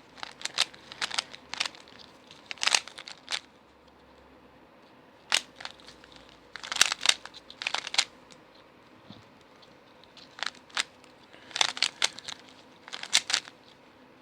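Plastic 3x3 speed cube being turned during a solve: quick runs of sharp clicks as the layers snap round, in three flurries with short pauses between.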